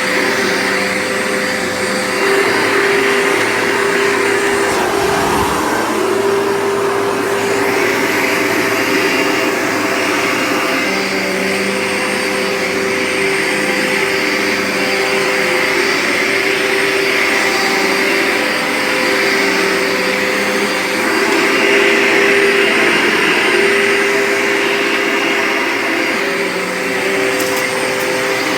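Dirt Devil Featherlite upright vacuum cleaner running on carpet: a loud, steady motor whine and airflow hum, swelling and easing a little as it is pushed back and forth.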